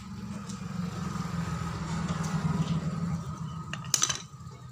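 A steady low motor hum that swells and then fades, with a single sharp metallic click about four seconds in as a screw comes free of the amplifier's steel panel.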